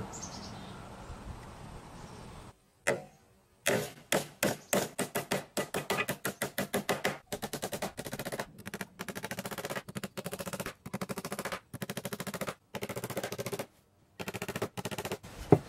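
Claw hammer driving nails into cedar boards: a long string of quick, sharp blows, about four a second, starting about three seconds in and coming in runs with short breaks.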